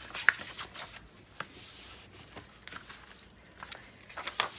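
Sheets of paper being handled, rustling and shifting, with a few sharp light clicks and taps, the sharpest just after the start.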